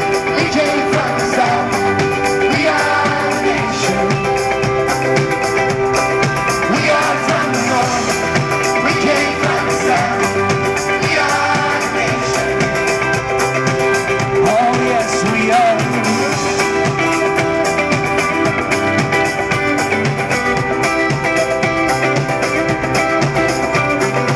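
Live band playing an instrumental stretch of a pop song, with a strummed acoustic guitar, keyboard and a steady beat, heard from the audience in the venue.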